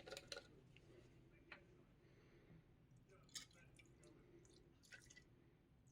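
A few faint drips and light clicks from a RAM module being worked in an isopropyl alcohol bath, otherwise near silence.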